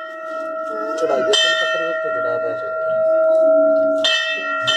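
Hanging metal temple bell struck by its clapper, once about a second in and again about four seconds in, with a lighter knock near the end; each strike rings on in a long steady tone that overlaps the next.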